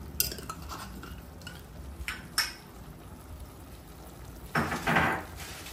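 Cooking utensil knocking a few times against a frying pan, then a louder scraping stir near the end.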